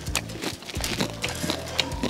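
Close-miked chewing of a crisp corn tostada, with irregular sharp crunches every fraction of a second, over background music.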